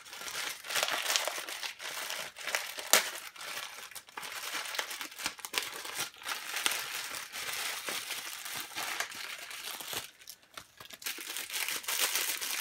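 Plastic mailer package being torn open and handled, crinkling with sharp irregular crackles and one loud snap about three seconds in, then the crinkle of a clear plastic inner bag.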